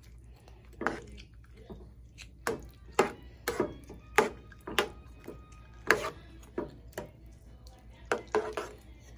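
Metal spoon stirring a thick creamy pasta sauce in a frying pan, knocking and scraping against the pan in irregular clinks about once or twice a second.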